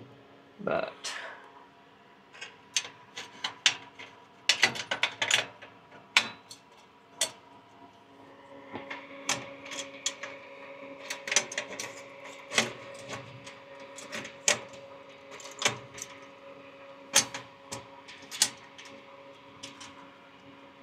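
Irregular sharp metallic clicks and clinks as metal duct clamps are handled and fitted around the flanges of an aircraft engine bleed valve, over a steady faint hum.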